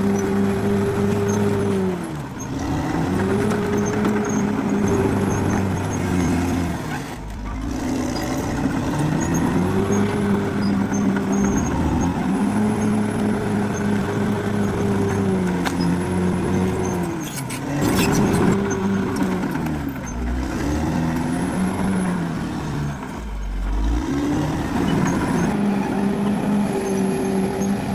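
Caterpillar D6R XL bulldozer's diesel engine working hard, its pitch repeatedly pulling down under load and recovering, about five times. A few low thuds sound where the engine sags deepest.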